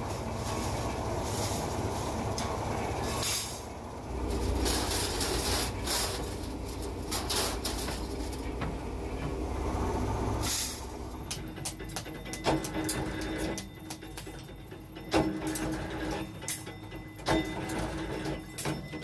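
Workshop machinery rumbling steadily for about ten seconds. Then stainless steel spoons clink and clatter against each other, with a faint machine hum and a few sharper metal knocks a couple of seconds apart.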